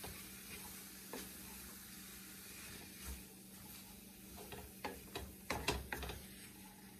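Faint sizzling of sweet potato noodles and mushrooms cooking in a stainless steel skillet. A wooden spoon stirs them, scraping and knocking against the pan, with a run of knocks a bit over halfway through.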